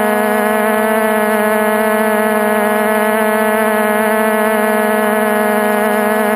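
Multirotor drone's electric motors and propellers running at a steady hover speed, a loud, even buzzing drone that holds one pitch throughout.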